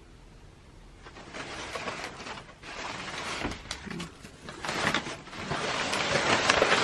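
Packaging crinkling and rustling as folded garments are unwrapped by hand, starting about a second in and growing louder toward the end.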